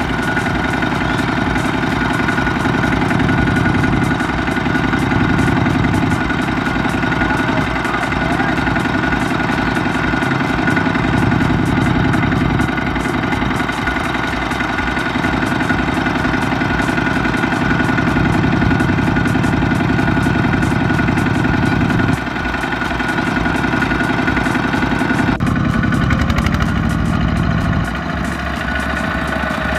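Kubota ZT120 single-cylinder diesel engine of a two-wheel walking tractor, running steadily while the tractor is bogged in deep mud. The engine note shifts a couple of times near the end.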